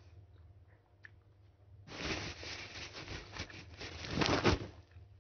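Loud rustling and scraping handling noise on the recording phone for about three seconds, starting about two seconds in and loudest near the end, as a hand reaches to the phone.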